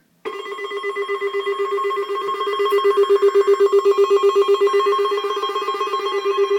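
A loud electronic ringing tone that starts abruptly and trills rapidly, like a telephone bell, holding a steady low pitch with higher tones above it.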